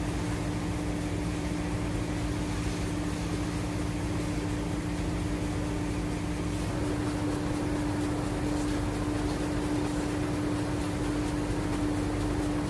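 Steady drone of a running engine or machine with a constant hum; a second, lower hum drops out about two-thirds of the way through.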